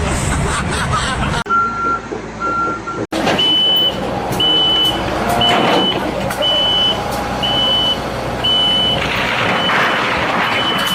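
A heavy vehicle's reversing alarm beeping about once a second over a running engine. Just before it, after a cut, two shorter lower-pitched beeps are heard.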